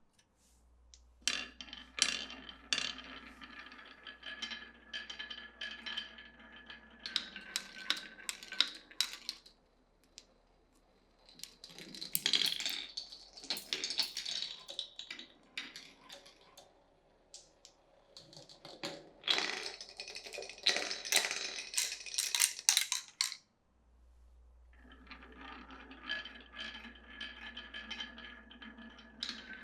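Glass marbles rolling along a wooden marble run, each run a steady rumble with a ringing tone, broken by clusters of rapid clacks as marbles drop and knock against the wooden pieces, around ten seconds in and again around twenty.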